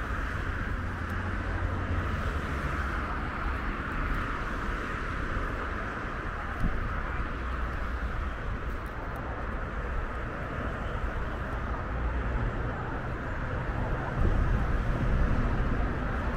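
Steady hiss and hum of road traffic in the open air, with wind buffeting the microphone and gusting harder near the end. A single brief knock a little over six seconds in.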